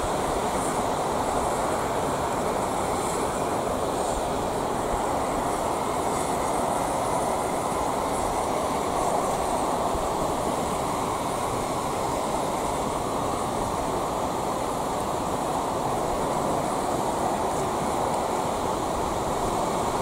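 Steady rushing roar of a gas torch flame and the fire it has set on a plastic drip coffee maker, burning evenly without break.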